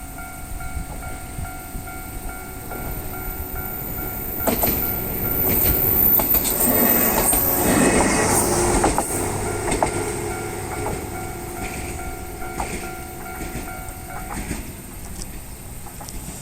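Japanese level-crossing warning bell ringing in a steady, rapid rhythm while a train passes over the crossing, its wheels clacking over the rail joints, loudest in the middle and then fading. The bell stops near the end.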